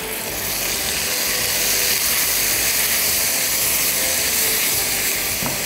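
Chopped tomatoes frying in hot ghee with browned onions and whole spices, stirred in a nonstick pan: a steady, even sizzle.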